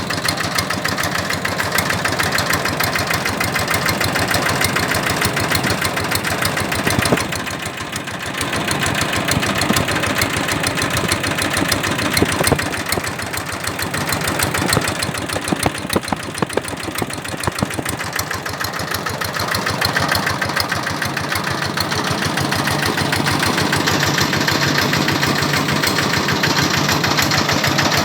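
Kubota RD 65 DI-1S single-cylinder, water-cooled direct-injection diesel running with a rapid, even knocking beat. It dips briefly about seven seconds in, runs unevenly for several seconds after that, then settles into a steady run.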